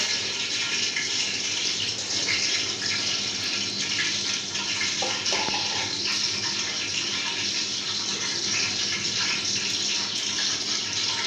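A steady rushing hiss that holds an even level throughout.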